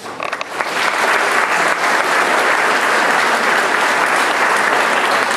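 Audience applauding steadily, a full hall of hands clapping that swells up within the first second.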